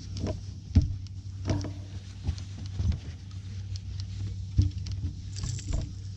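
Angler fighting a hooked bass from the deck of a bass boat: a steady low hum with scattered knocks and taps of tackle and feet on the deck.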